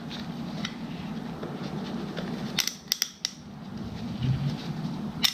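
Small sharp clicks and taps as the plastic oil filter housing and its O-ring are handled: a quick cluster of four around the middle and one more near the end, over a low steady hum.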